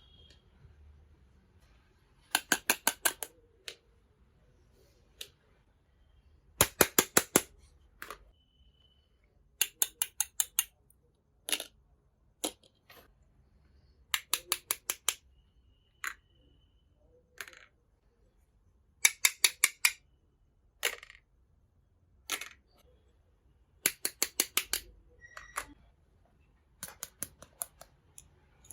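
Small sharp clicks from handling miniature toy kitchen pieces, coming in quick bursts of about six to eight clicks every few seconds, with single clicks in between.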